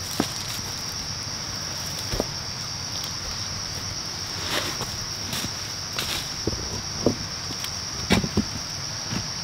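A steady, high insect drone, with scattered footsteps and knocks on stony ground. A few sharper clacks of stones come near the end.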